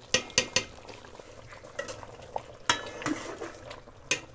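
A metal ladle stirring chicken karahi in a metal cooking pot: it clinks and scrapes against the pot three times in the first second, again nearly three seconds in, and once near the end. A faint sizzle of the tomato-and-chicken masala frying runs underneath.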